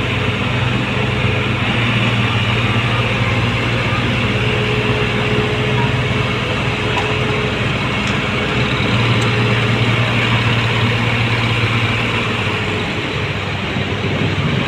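Diesel tractor engine running hard under load as it pulls two heavily loaded sugarcane trailers through deep mud, a steady low drone that eases slightly near the end.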